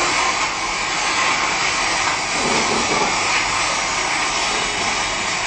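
Steady, loud roar and hiss of an oil well blowing out: oil and gas escaping uncontrolled from the wellhead of a drilling rig at very high pressure, heard from a screen's speakers across a room.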